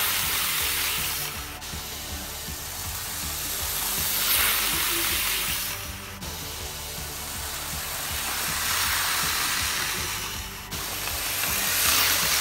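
Kato N-scale EF66 model train running on its track, the wheels and motor giving a hissing rush that swells as the train passes close by, about four seconds in, and again near the end. Background music plays under it.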